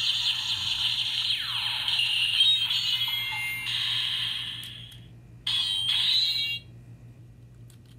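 Power Rangers Ninja Steel deluxe Battle Morpher toy playing its electronic sound effects through its built-in speaker: one long burst of about five seconds with a falling sweep in the middle, then a shorter burst of about a second, about five and a half seconds in.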